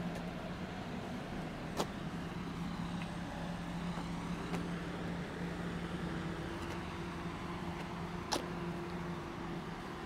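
A motor vehicle's engine running at a steady low hum nearby, with two sharp clicks, one about two seconds in and one near the end.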